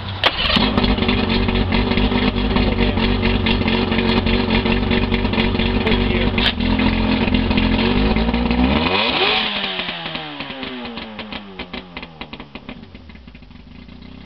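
A 1993 Mercury 115 inline-six two-stroke outboard, freshly carb-rebuilt and tuned, fires up and runs fast and steady. About nine seconds in its speed winds down over a few seconds, and it settles to a lower, quieter idle.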